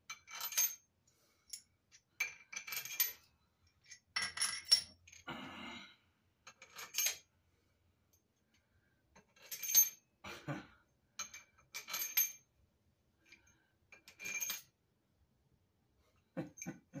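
Steel head bolts clinking against each other and against the cylinder head as they are handled and dropped into the bolt holes. The clinks are short and separate, about one every second or so, each with a bright metallic ring.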